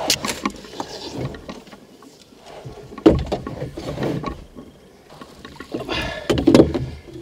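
Handling noises in a small rowboat as a hooked zander is reeled in and brought aboard: scattered clicks and knocks, a sudden loud knock about three seconds in, and a louder cluster of rubbing and knocking around six seconds.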